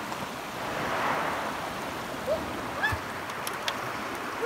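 Sea waves washing over a rocky shore, a steady rush that swells about a second in. A few short high chirps and faint clicks come in the second half.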